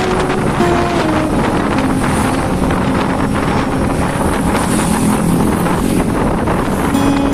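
Steady road noise from a moving car, with wind buffeting the microphone. Faint held notes that change pitch in steps sound underneath.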